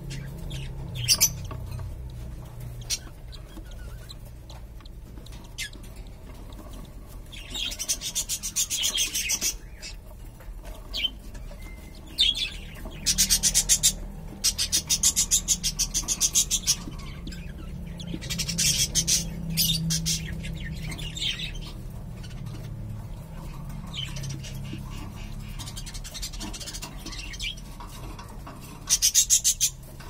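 Newly hatched cockatiel chicks giving several bursts of rapid, raspy, high begging calls, each a second or two long, as the hen feeds them beak to beak.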